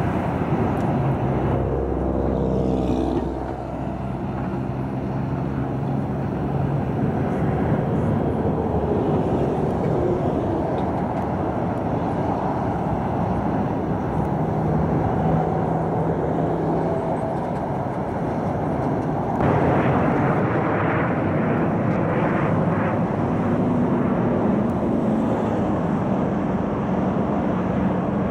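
Jet engines of a Southwest Boeing 737 droning steadily as it climbs away after takeoff, a low rumble with a few faint hum tones. About two-thirds of the way in the sound turns brighter and hissier.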